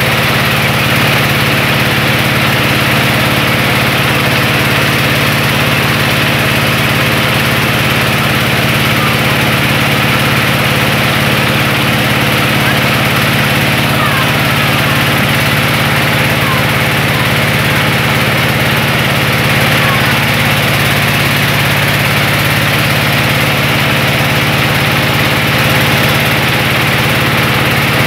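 Mobile rice-milling machine running steadily, its engine driving the huller as it husks paddy into rice.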